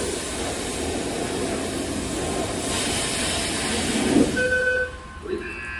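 A loud, steady rushing noise over a low rumble, easing off about five seconds in. A short electronic beep from the car wash pay station sounds just before it eases.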